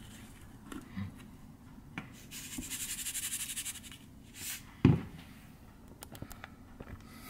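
Seasoning shaken from a spice shaker over a bowl: a rattling hiss of falling granules for about two seconds, a shorter shake, then a single thump about five seconds in.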